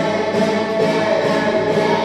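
A choir singing, with a new long note entering right at the start and held.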